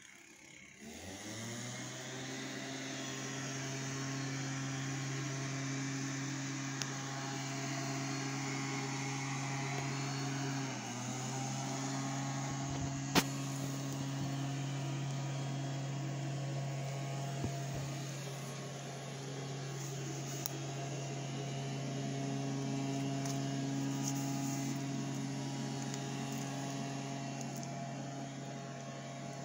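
Honda RC51 SP2's 999 cc 90-degree V-twin idling through a shortened Yoshimura RS-3 stainless slip-on exhaust, coming up to a steady idle in the first second or two. The idle steps slightly lower about 11 seconds in, and there is a single sharp click a couple of seconds later.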